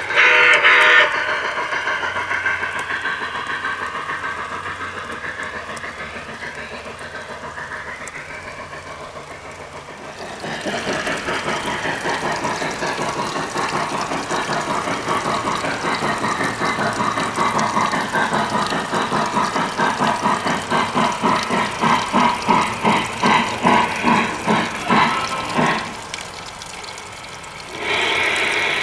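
Lionel Legacy model of a Pennsylvania 2-10-4 J1a Texas steam locomotive with its onboard sound system: a whistle blast ends about a second in, and the running train then fades as it moves away. After a cut, its steam chuffing comes in as a rhythmic pulse that grows louder as the locomotive approaches, then stops as it halts. Another steady sound starts near the end.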